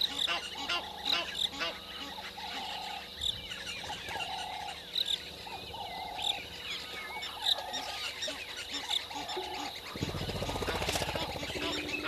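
Outdoor bird chorus: a short honking call repeated about once a second over many high chirps and warbling trills from other birds. A low rumbling noise comes in near the end.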